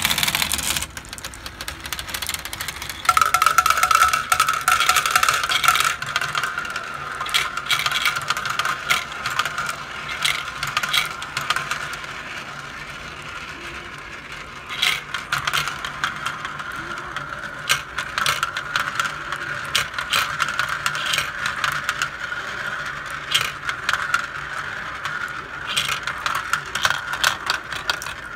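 Glass marbles rolling and clattering through a plastic toy marble run, with many quick clicks as they knock against the track and bowls. A steady whine from the run's small motorized gear lift comes in about three seconds in and runs under the clatter.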